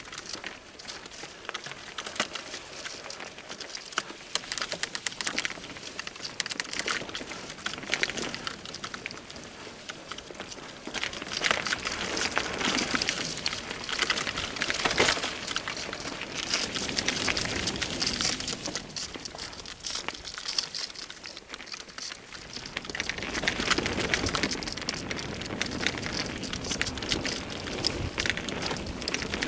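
Bicycle descending a dirt trail: a steady crackle and crunch of the tyres rolling over dirt and gravel, getting louder about a third of the way in, easing briefly, then louder again near the end.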